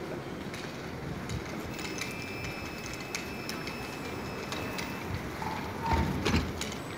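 Škoda 14T tram standing at a stop with its doors open: a steady high electrical whine from about two to five seconds in over street noise, with scattered light clicks and a louder knock about six seconds in.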